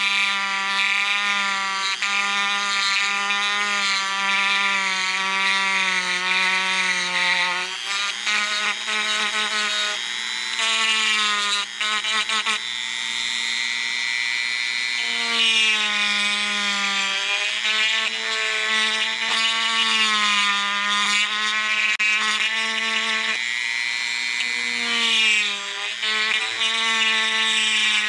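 Dremel rotary tool running and cutting into a rubber earmuff ring: a steady whine that dips and rises in pitch as the bit bites into the rubber and eases off.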